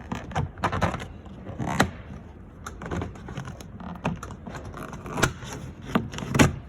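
Irregular clicks, taps and rattles of hand tools working screws and trim on a car's door interior, with a few sharper knocks near the end.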